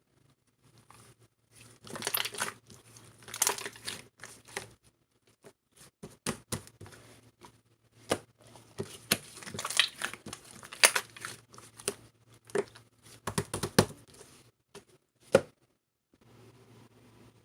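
Clear slime mixed with clay being squished, stretched and folded by hand: irregular sticky crackles and pops, coming in clusters, which stop a couple of seconds before the end.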